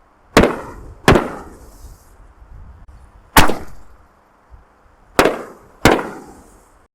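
Six-inch double-break canister firework shells being fired and bursting: five sharp bangs, two close together early on, one in the middle and two more close together near the end, each trailing off briefly.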